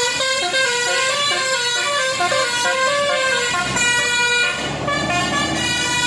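Basuri (telolet) multi-tone vehicle horn playing a tune, its notes stepping up and down. About four and a half seconds in the tune stops and a noisier sound with fainter tones takes over.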